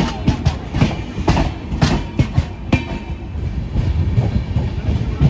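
Passenger train's wheels clattering over rail joints: a steady low rumble broken by sharp clicks and knocks, two or three a second.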